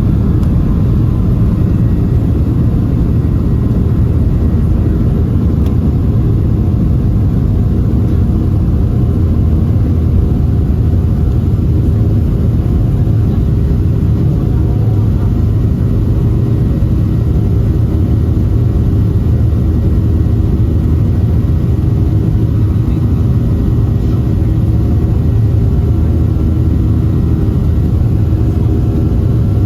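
Steady cabin rumble of a Boeing 737-700 airliner with its jet engines running, heard from inside the passenger cabin, at an even loudness throughout.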